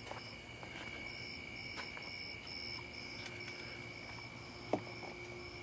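Insects chirping in short, evenly repeated trills over a steady high background tone, with one faint click near the end.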